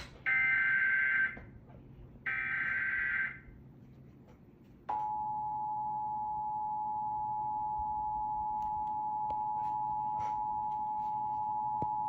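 Emergency Alert System broadcast of a severe thunderstorm warning, played from a TV. First come two one-second bursts of SAME header data tones, then a short gap, then the steady two-tone EAS attention signal from about five seconds in, holding on.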